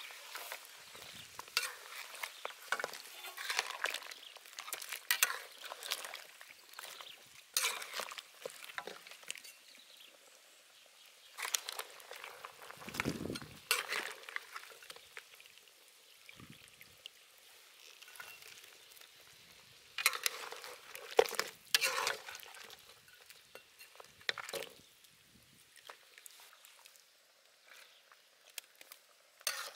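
Wire-mesh skimmer scraping and clinking against a large metal wok as cooked beef rib bones are lifted out of the broth. The clatter comes in bursts with quieter stretches between.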